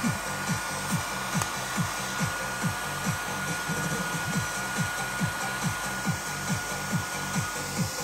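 Hand-held hair dryer blowing steadily with a thin motor whine, drying a small dog's coat. Under it, background music with a steady thumping beat a little over twice a second and a bass line.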